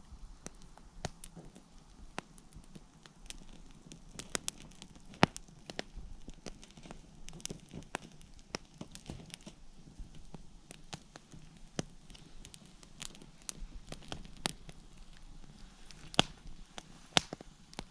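Wood fire crackling: irregular sharp snaps and pops, some louder than others.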